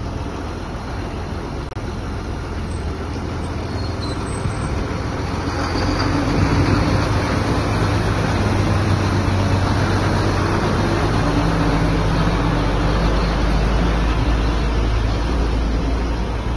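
Diesel engine of a semi-trailer tractor unit running as the truck drives slowly past hauling a shipping container. It grows louder about six seconds in as the truck comes close, then eases slightly near the end.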